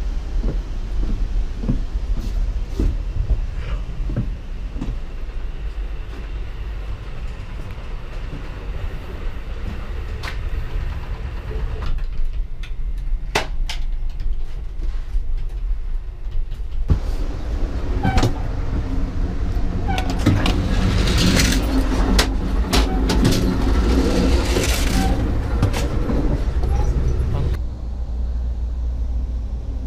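Interior running noise of a moving passenger train: a steady low rumble from the wheels on the track, with scattered clicks and rattles. Past the middle it grows louder with a run of clattering for about ten seconds, then settles back near the end.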